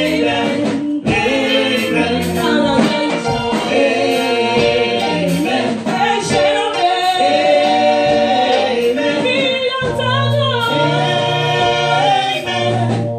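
A women's church praise team singing a gospel song together into microphones, several voices in harmony.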